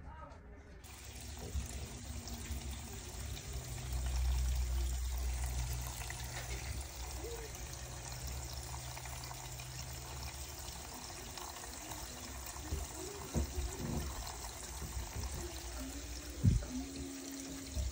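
Bathroom sink faucet running steadily, with a single sharp knock near the end.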